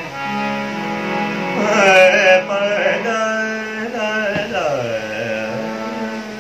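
Harmonium holding a steady drone note, with a man singing a long vocal phrase over it that glides up and down in pitch from about a second and a half in until about five seconds in.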